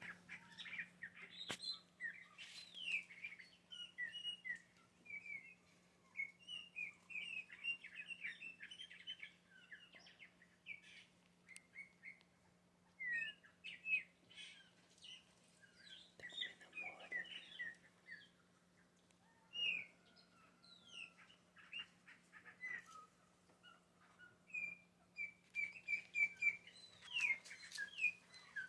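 Chopi blackbird (pássaro-preto) singing: a long run of short, varied notes with a few brief pauses.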